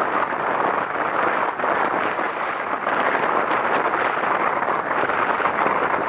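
Steady rush of wind on a camera microphone held outside a moving car, mixed with the car's running and road noise.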